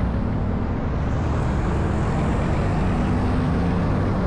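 Motorcycle engine running steadily, with road noise.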